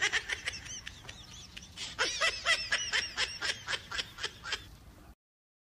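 Monkey squealing in play as it wrestles with a cat: a quick run of very high-pitched squeaks, about four or five a second, with a short burst at first and a longer run about two seconds in. The sound cuts off suddenly near the end.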